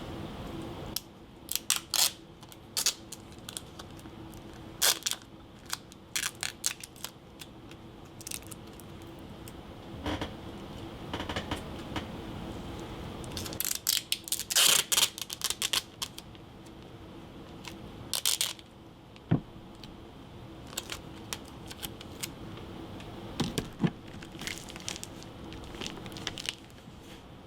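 Tape and a paper sheet being handled and pressed down onto a case: scattered sharp clicks and crinkles, with a denser run of crackling about halfway through.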